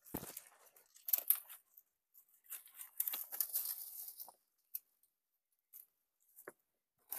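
Long grass stems rustling and crackling as a bundle is pushed and arranged by hand against a rock, in several bursts, the longest about two and a half seconds in, with a dull thump at the start.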